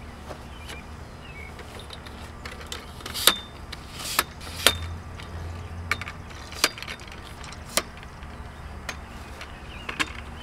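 Aluminium tripod being handled and set up: a run of sharp, irregular clicks and knocks from its leg locks and head, the loudest about three and a half and five seconds in, over a steady low hum.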